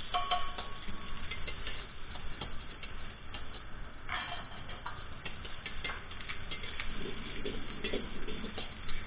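Kitchen clatter: metal utensils and dishes clinking and knocking, with a brief ringing clink just after the start and a cluster of clinks about four seconds in.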